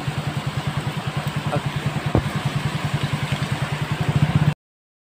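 A motor vehicle's engine idling with a fast, even pulse, over the steady hiss of heavy rain. The sound stops abruptly near the end.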